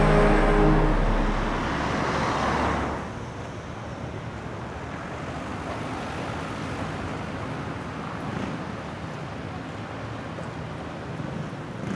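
Music dies away in the first two or three seconds, giving way to steady city street traffic noise.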